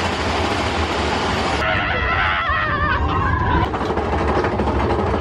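Big Thunder Mountain Railroad mine-train roller coaster rumbling along its track. High wavering cries come over the rumble about two seconds in.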